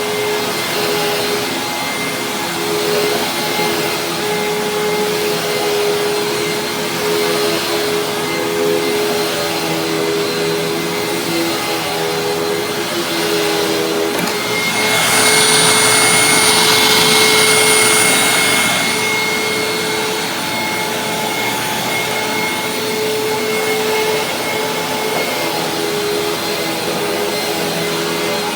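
Hoover WindTunnel Supreme upright vacuum running steadily while vacuuming, a steady motor hum under the rush of air. The machine is freshly serviced, with a cleaned filter and a new brushroll. About halfway through, the airflow rush grows louder and brighter for around four seconds, then settles back.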